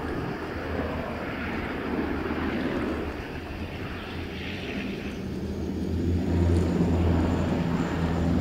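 Canadair CL-415 amphibious water bomber's twin Pratt & Whitney Canada PW123AF turboprops running with a steady low drone as the aircraft skims the water surface scooping a load, with the rush of spray from its hull. The sound grows louder past the halfway point as the aircraft comes closer.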